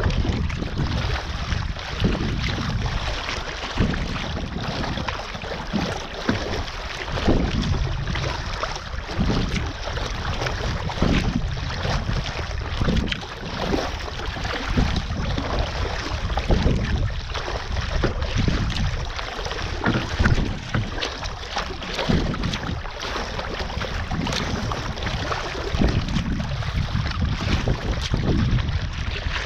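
Sea kayak under way in choppy water: paddle strokes splashing in a steady rhythm and small waves slapping the hull. Wind rumbles on the microphone throughout.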